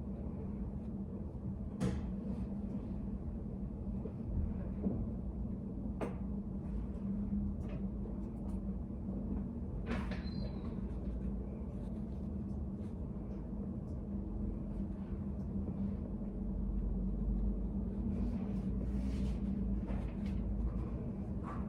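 Study cafe room tone: a steady low hum, with a few sharp clicks and knocks now and then.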